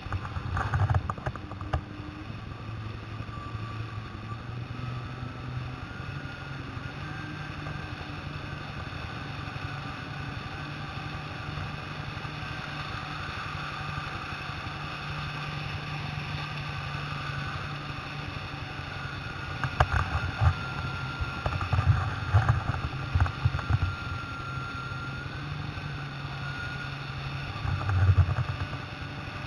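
Jet ski engine running steadily at speed, a low drone with a thin high whine over it. The hull slaps over waves in bursts of loud knocks about two-thirds of the way through and again near the end.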